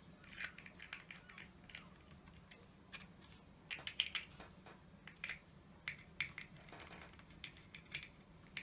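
Small screwdriver and extruder parts clicking and tapping faintly and irregularly as a screw is driven in to fix the fan scoop onto a 3D printer's extruder.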